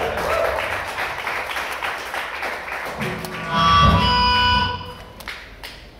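A live rock band's song ending: the music fades out, with a held chord about three and a half seconds in that dies away. The drums have stopped.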